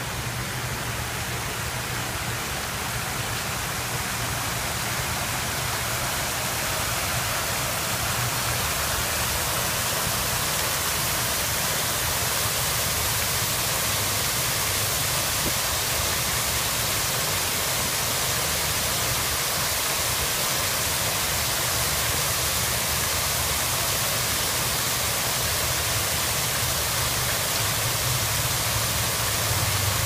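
Steady rush and splash of water: a shallow landscaped stream running over rocks, giving way to an artificial rock waterfall pouring into a pool. The hiss grows fuller and brighter over the first several seconds, then stays even.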